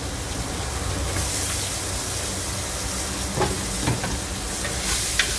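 Chicken gizzards frying in a pan with onion and seasoning, sizzling steadily; the sizzle grows louder about a second in as chopped tomato goes in, and a spoon clinks against the pan a few times while stirring.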